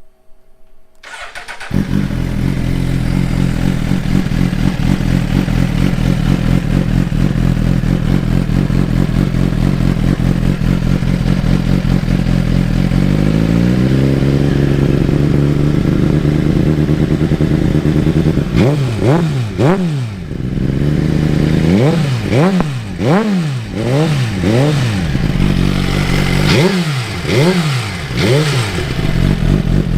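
2017-on Suzuki GSX-R1000 inline-four with a Yoshimura slip-on exhaust and the factory catalytic converter kept, starting about two seconds in and idling. The idle rises about halfway through, and then the engine is given a string of quick revs. A slight rattle comes from the factory exhaust valve, which the owner calls a known Suzuki problem, not an engine fault.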